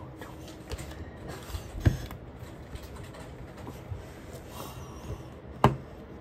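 Plastic slime tubs being handled on a table: small clicks and rubbing, with two sharp knocks, one about two seconds in and a louder one near the end.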